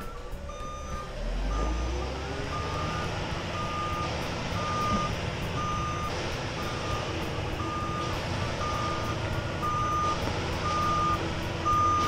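Concrete mixer truck backing up: its reverse alarm beeps at a steady, regular pace over the running diesel engine, with a low engine rumble swelling about a second in.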